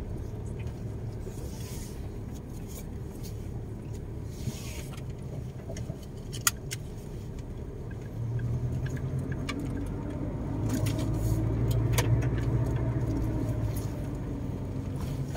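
Car driving on a dirt and gravel track, heard from inside the cabin: a steady low rumble of engine and tyres that grows louder about eight seconds in, with scattered small clicks and knocks.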